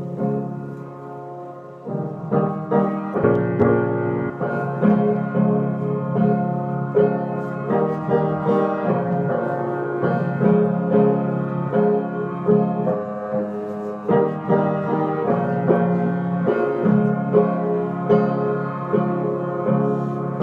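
Instrumental music: pitched notes and sustained chords in a steady rhythm, without singing, growing fuller and louder about two seconds in.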